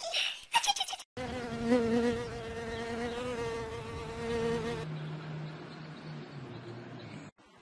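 A short, louder pitched sound in the first second, then a steady insect buzz with many overtones. About halfway through the buzz drops to a lower pitch, and it cuts off suddenly near the end.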